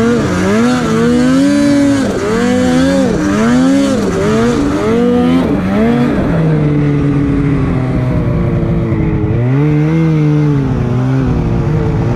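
Snowmobile engine revving up and down repeatedly on the throttle. After about six seconds it settles into a steadier high run, with one brief drop and pick-up near the end.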